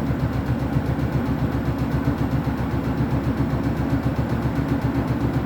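Beko WTK104121W washing machine drum running with a heavily unbalanced, oversudsed load, giving a low, rapid, even pulsing. The suds lock and the out-of-balance load are holding it back from its final spin.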